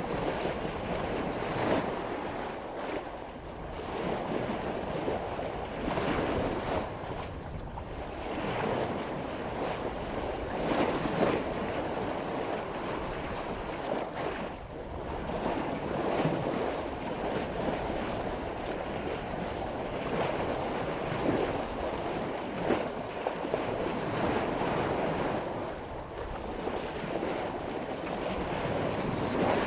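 Sailboat's bow cutting through ocean waves at about 5 knots: a continuous rushing and splashing of water that swells and eases every few seconds, with some wind on the microphone.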